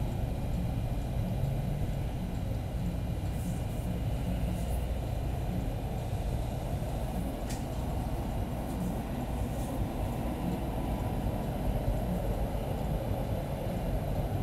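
Caterpillar D-series excavator's diesel engine running steadily at low speed, a low rumble heard from inside the cab. A few faint clicks come through as the monitor panel's buttons are pressed.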